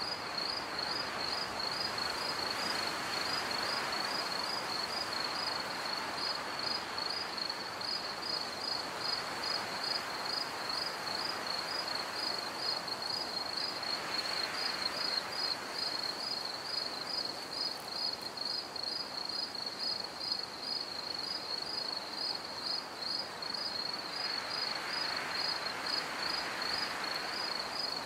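Crickets chirping steadily in an even, rapid rhythm of about two or three high chirps a second, over a soft rushing noise that swells and fades every few seconds.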